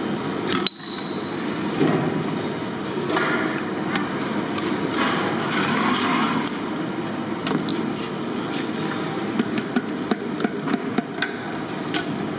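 Steady kitchen din with sharp clinks and taps of a spoon against a large steel pot, a quick run of them near the end.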